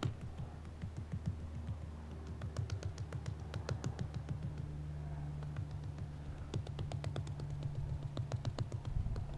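Hands patting and pressing wet red clay onto a mud fireplace, a quick run of soft slaps and taps, several a second, over a steady low hum.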